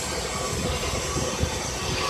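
Wasino CNC milling machine cutting a plastic-injection mould: steady machining noise with a few steady tones over a hiss and an irregular low rumble.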